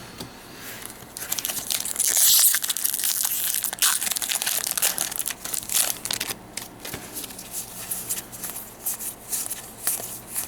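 Foil wrapper of a Magic: The Gathering booster pack being torn open and crinkled, loudest about two to four seconds in, followed by scattered rustling and clicking of the wrapper and cards being handled.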